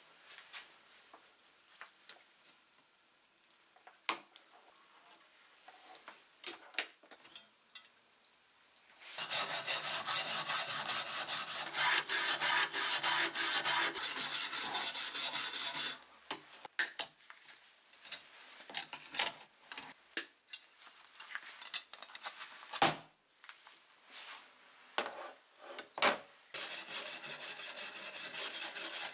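Wire brush scrubbing a rusty steel drawknife blade in an electrolysis rust-removal bath: rapid, loud strokes for about seven seconds, starting about a third of the way in, with scattered light clicks and clatter before and after. Near the end, a scouring pad rubs the blade steadily in soapy water, more quietly.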